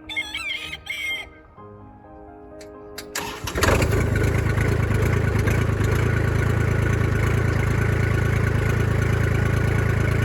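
A rooster crows briefly, then a tractor engine cranks, catches about three and a half seconds in and settles into a steady run.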